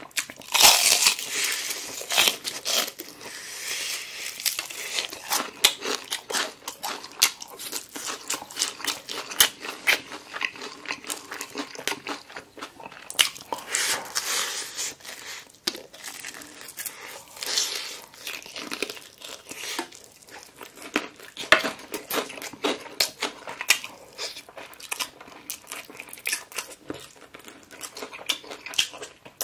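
Crispy deep-fried chicken being bitten and chewed: a dense, continuous crackle of breaking batter, with chewing between the bites.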